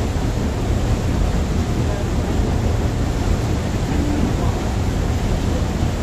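Bosphorus passenger ferry under way: a steady low engine rumble mixed with the rushing of the wake churning along the hull.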